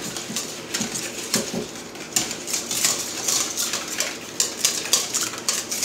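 Wire whisk beating a mayonnaise dressing in a stainless steel bowl: rapid, regular clicks and scrapes of the wires against the metal.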